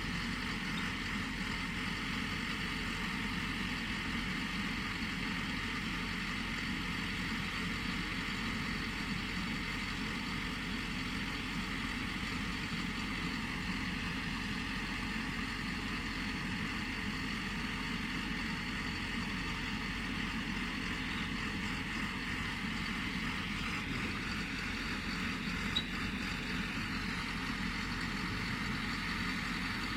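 Pile-driving machine's engine running steadily, without any hammer strikes, with one faint click near the end.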